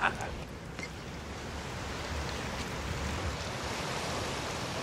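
Steady wash of surf on a beach, gradually growing a little louder, with wind gusting on the microphone.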